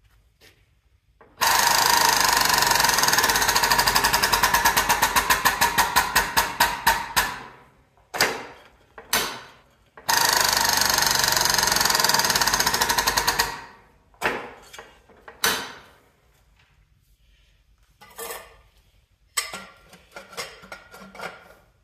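Air-over-hydraulic pump running in rapid strokes, twice (about six seconds, then about three and a half), driving a tube expander to flare the end of stainless exhaust tubing; the first run slows into separate strokes near its end as the pressure builds. Several shorter bursts follow, and near the end the tube clatters as it is lifted off the expander.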